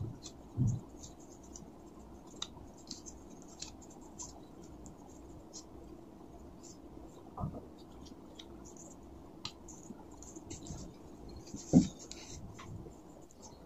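Cotton gauze bandage rustling and scratching as it is wound around gloved fingers, in scattered light scratches, with a few soft knocks, the loudest near the end.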